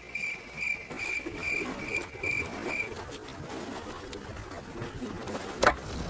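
A bird calling, a short high note repeated about twice a second, which stops about halfway through. A single sharp click or knock near the end.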